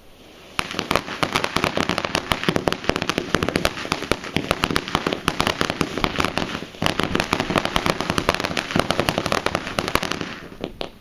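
Standard Fireworks "Velvet" ground fountain burning with a dense, rapid crackle of popping stars. The crackle starts about half a second in, dips briefly near the seven-second mark, then carries on and dies away just before the end.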